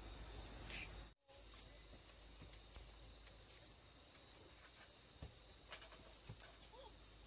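An insect's steady, unbroken high-pitched trill. It cuts out completely for a moment about a second in, then carries on, with a few faint soft knocks underneath.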